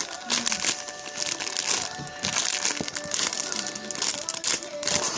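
Packaging crinkling and rustling as it is handled, in quick irregular crackles, with background music playing.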